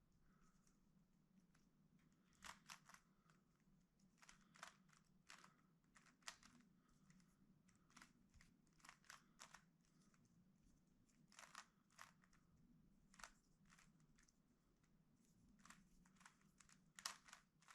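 Faint, irregular clicks and clacks of a plastic Rubik's Cube's layers being turned by hand, with a slightly louder clack near the end.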